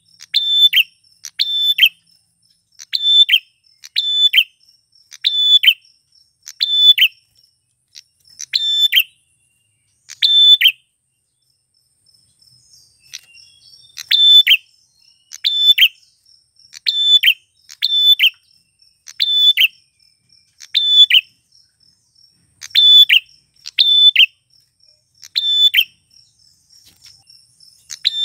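Male prenjak klawu (a prinia) calling: a long series of loud, short, sharp chirps, roughly one a second, with a pause of a few seconds about halfway through. A faint steady high buzz runs underneath.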